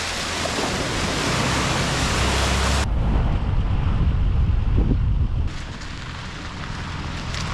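Nissan Patrol 4WD driving on a rough off-road track: a low engine and tyre rumble under heavy wind or road noise on the microphone. The hiss drops away suddenly about three seconds in, leaving mostly the rumble, and comes back near the end.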